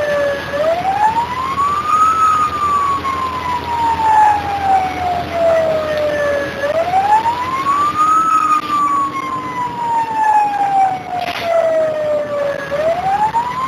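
Fire engine siren on a slow wail, heard from inside the moving cab: each cycle climbs quickly for about a second and a half, then slides slowly back down for about four seconds, repeating about every six seconds. Steady engine and road noise runs underneath.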